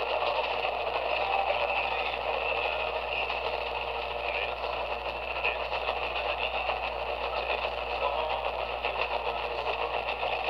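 Portable AM radio tuned to 1430 kHz giving steady static and noise, with no clear programme audio. The strong co-channel local station WDAL is nulled, leaving weak, noisy reception.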